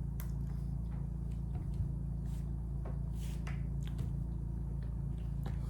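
Steady low electrical hum with a few faint, scattered clicks and soft rustles of small handling sounds.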